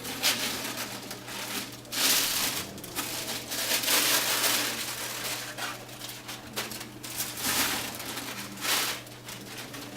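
Protective packaging crinkling and rustling in irregular bursts as it is pulled off and handled, busiest through the middle, over a faint steady low hum.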